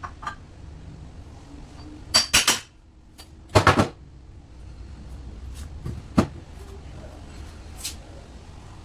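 Small hard objects, likely metal parts or tools, being handled on a workbench: clattering and clinking in two short bursts about two and three and a half seconds in, with a few single knocks between.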